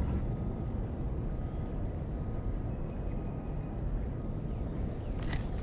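Steady low outdoor rushing noise of river water and air, with a few faint high chirps now and then and one short sharp tick about five seconds in.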